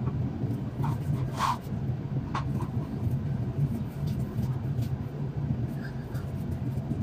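Steady low hum of a kitchen appliance, with a few soft taps and pats about a second or two in as gloved hands shape mashed potato over the pot.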